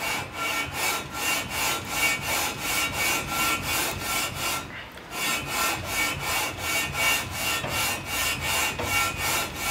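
Aluminum cylinder head being pushed back and forth over sandpaper on a flat table saw top, resurfacing its gasket face by hand. Even rasping strokes at about three a second, with a brief pause a little under halfway through.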